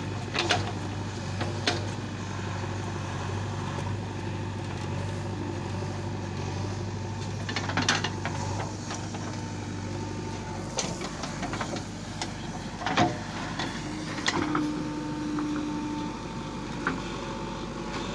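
JCB 3DX backhoe loader's diesel engine running steadily while the backhoe digs a trench, with several sharp clanks from the bucket and arm, the loudest about 13 seconds in.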